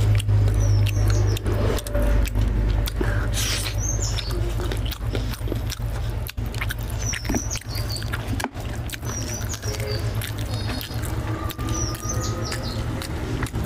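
Fingers tearing apart a whole fried tilapia, its crisp skin and flesh giving many short crackling clicks, with eating sounds as pieces go to the mouth.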